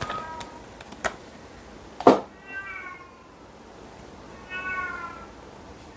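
A cat meowing several times: a short call at the start, then two longer ones about two and a half and four and a half seconds in. A few sharp knocks or clicks come between them, the loudest about two seconds in.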